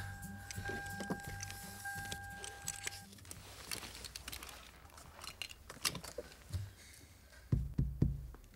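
Film score music with two held notes over a stepping bass line that stops about three seconds in; then rustling and light clicks of a car seatbelt being pulled across and buckled, and three dull, heavy thumps near the end, the loudest sounds here.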